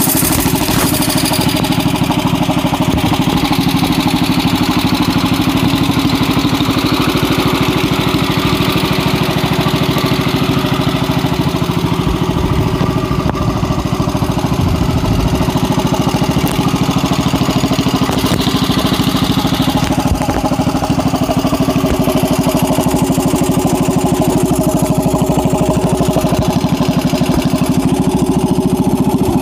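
John Deere 110 garden tractor's engine running steadily at constant speed through a tall upright exhaust stack, with a rapid, even firing beat.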